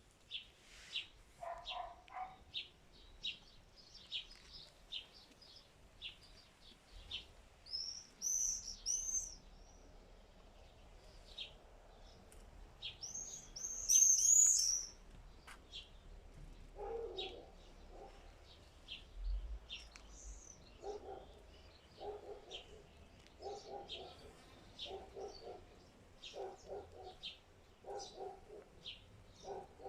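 Small songbirds chirping with short, quick high notes, with two louder runs of sweeping high notes about a quarter and halfway through. From just past halfway, a lower call repeats about once a second beneath the chirps.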